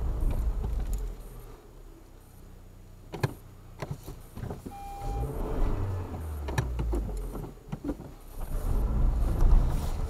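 Renault Duster heard from inside the cabin, its engine pulling in three low rumbling surges as the car churns through deep snow drifts, with a few sharp knocks in between and a short beep about five seconds in.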